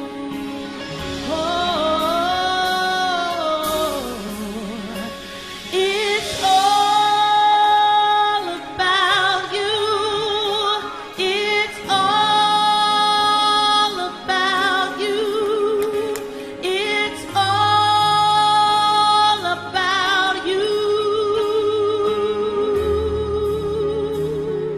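Gospel worship music: a woman singing long held notes with vibrato over sustained instrumental accompaniment.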